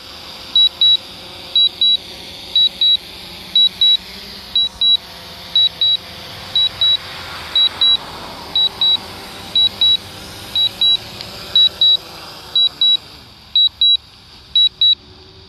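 A drone's warning beeps during landing: pairs of short high beeps about once a second, over the steady hum of its propellers, which fades near the end as it settles on the ground.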